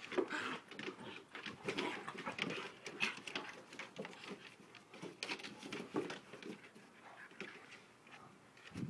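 Two dogs, an Alaskan Malamute and a Malamute cross, play-fighting: a run of short, irregular dog sounds mixed with scuffling as they wrestle.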